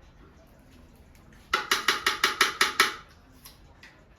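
Rapid even clatter of a utensil beating against a mixing bowl: about ten strokes at some seven a second, lasting about a second and a half.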